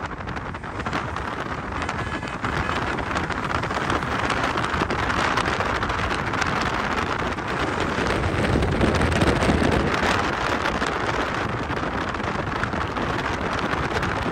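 Wind buffeting the microphone over the steady rushing road and engine noise of a moving vehicle. It gets louder for a moment about nine seconds in.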